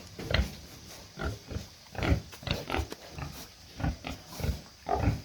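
Domestic pigs grunting in short, separate grunts, two or three a second.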